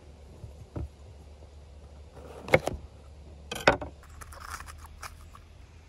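Chef's knife cutting through green bell peppers and striking a wooden cutting board. A soft thud comes about a second in, then two sharp knocks about a second apart, with lighter crunching and scraping around them.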